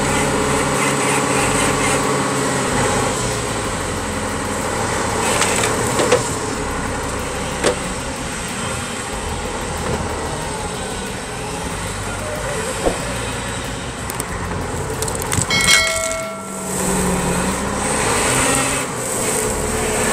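Diesel engine of a wheel loader running steadily under load while its hydraulic stump-pulling grapple grips, splits and tears a tree stump out of the ground. A few sharp cracks come at intervals, and a brief whine sounds about three-quarters of the way through.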